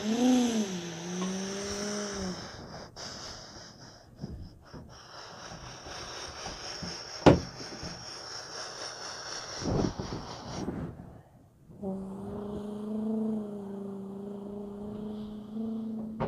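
A person's voice making a hummed engine noise for a toy truck being driven. The hum wavers up and down for the first two seconds, then comes back steady for the last four seconds. Between them there is plastic handling noise and one sharp click about seven seconds in.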